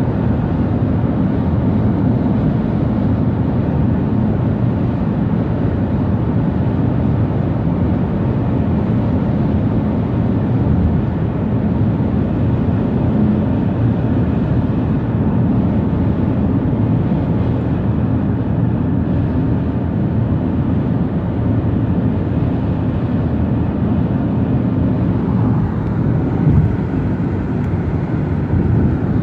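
A car driving at highway speed, heard from inside the cabin: a steady low rumble of tyre and road noise with the engine beneath it. There is one short louder bump near the end.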